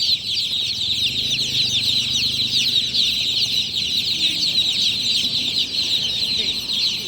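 A crowd of newly hatched chicks peeping loudly and continuously, many short, high, falling peeps overlapping without a break.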